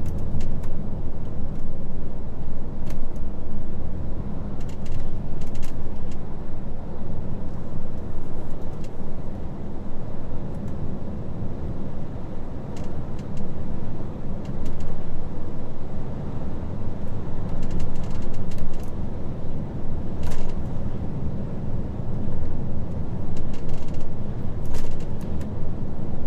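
HGV truck's diesel engine running with road noise while driving, a steady low rumble, with a few short clicks here and there.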